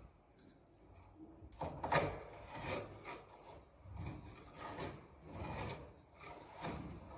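Hand-turned spoon auger boring through a wooden ship's rib: the steel spoon bit scrapes and cuts the wood in a series of rasping strokes, roughly one a second, starting about a second and a half in, with the loudest, sharpest scrape just before two seconds in.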